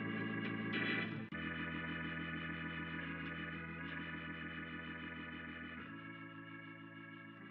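Instrumental ending of a song: held chords, changing about a second in and again near six seconds, slowly fading out.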